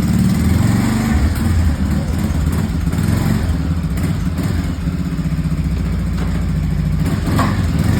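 Vehicle engine running at low revs, its pitch rising and falling slightly as the vehicle is manoeuvred back and forth in a tight turn.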